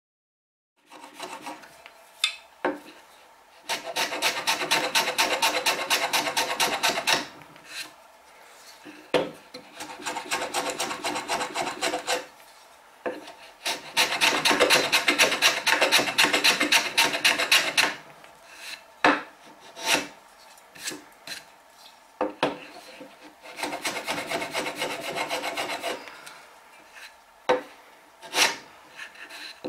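Small block plane shaving wood in quick, short, repeated strokes, in four spells of a few seconds each. There are pauses between the spells and a few sharp knocks in between, as the plane cleans the joint up flush.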